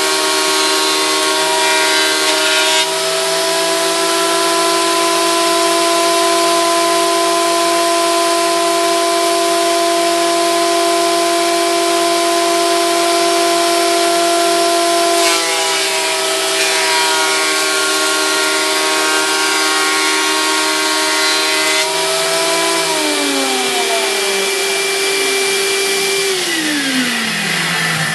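Benchtop planer-thicknesser planing a mahogany board to thickness, its motor running with a steady high whine alongside a shop vac pulling away the chips. Near the end both are switched off and their whine falls away, one motor a few seconds after the other.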